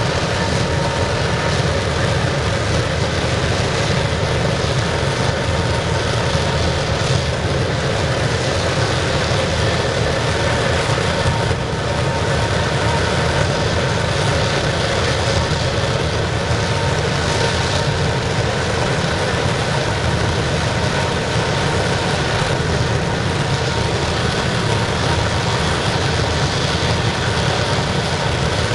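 Waste-oil burner of a scrapping furnace running, a loud, steady rush of burning oil and forced air with a faint constant hum.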